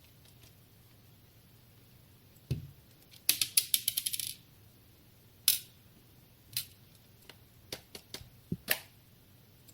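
Small hard computer parts being handled during a mini PC memory upgrade: a dull knock, then a quick rattle of clicks about a second long, then scattered single clicks.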